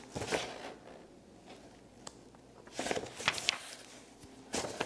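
Paper pages of an instruction booklet rustling as they are leafed through, in a few short rustles.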